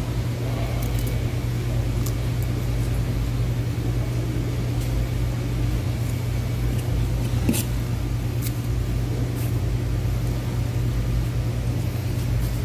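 Steady low machine hum, with a few short light clicks about a second apart near the middle.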